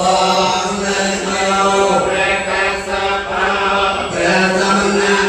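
Buddhist chanting by a group of voices, reciting on a steady held low tone with short breaks for breath about two and four seconds in.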